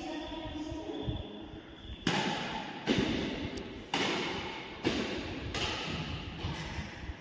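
Badminton rackets hitting a shuttlecock in a rally: about six sharp hits roughly a second apart, each echoing in a large hall.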